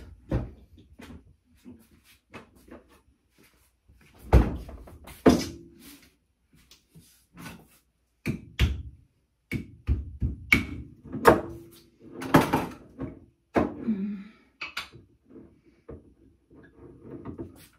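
Kitchen handling noises: an irregular string of separate knocks, clinks and thuds as dishes, a jar and cutlery are picked up, set down and moved, a few of them loud and sharp.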